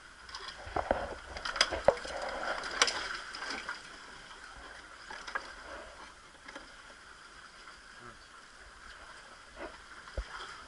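Sea water lapping and splashing against shore rocks, with a cluster of sharp clicks and knocks in the first few seconds from handling on the rock, then only a few scattered clicks.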